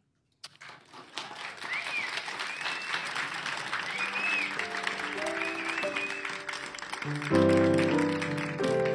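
An audience applauding, with a few high calls from the crowd, as instrumental music comes in under it about four seconds in and swells into louder chords near the end.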